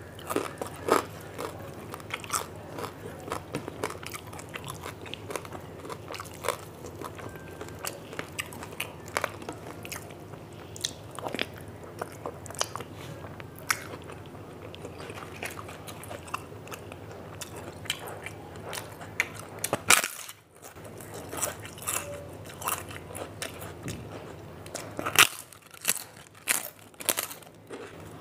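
A person eating close to the microphone: crisp bites and crunchy chewing of fried food, irregular sharp crunches all the way through, with a cluster of louder ones near the end.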